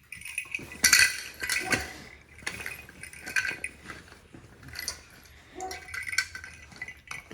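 A jingling cat toy with a bell and a small ball inside, shaken and knocked about by a Rottweiler playing with it: irregular bursts of metallic jingling, the loudest about a second in.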